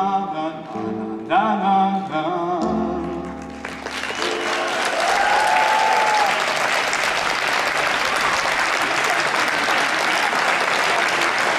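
A male singer holds the last notes of a song over held electric-keyboard chords, and the song ends about three and a half seconds in. An audience then breaks into steady applause, with one short rising-and-falling call from the crowd early in it.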